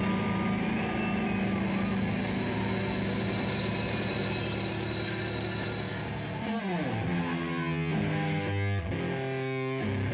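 Distorted electric guitar through an amp: a held, noisy chord rings on with a wash of high noise. About six and a half seconds in, it slides sharply down in pitch and goes into a riff of separate, stepped notes.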